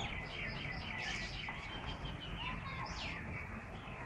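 Small birds chirping: many short, overlapping high calls and quick falling notes, over a steady low rumble.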